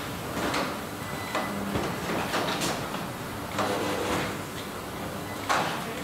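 Car-plant machinery on a paint-shop line: short air hisses and light knocks, irregularly about every second, over a steady background noise.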